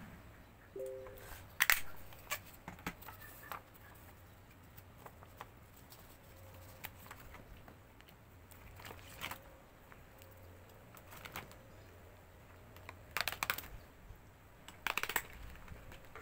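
Scattered sharp clicks and taps of small objects being handled at a work desk, with small clusters near the middle and end. A short electronic beep sounds about a second in.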